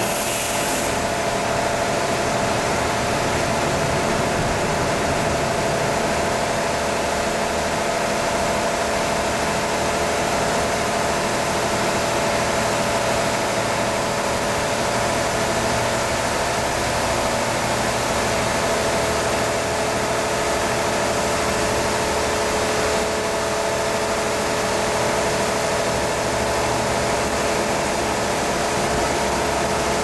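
Automatic car washing machine running, a steady mechanical hum with a constant hiss.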